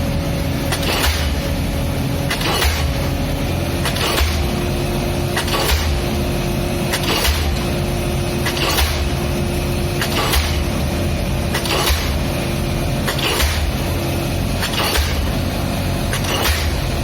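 Pile-driving hammer striking a pile about every one and a half seconds, each blow a sharp bang with a deep thud, over the steady hum of the pile driver's engine.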